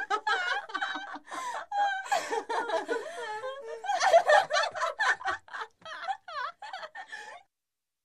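A group of girls laughing together: quick giggles and chuckles from several voices overlapping, cutting off suddenly near the end.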